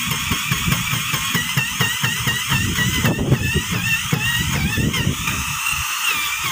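Cordless drill boring into the timber of a wooden boat hull, its motor whine wavering up and down in pitch as the load changes, over a fast low pulsing.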